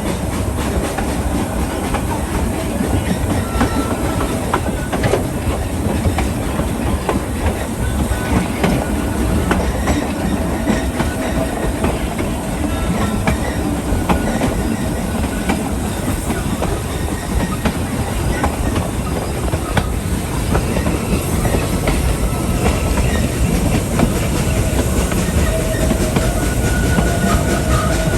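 Narrow-gauge railway coach rolling along behind a steam locomotive: a steady rumble of wheels on track with clickety-clack from the rail joints. Faint wheel squeals come and go, with a longer one near the end.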